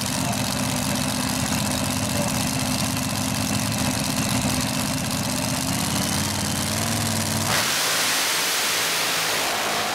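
Mud-racing buggy engine idling with a steady, even note. About seven and a half seconds in, the sound cuts abruptly to a loud, steady rush of noise with no engine note in it.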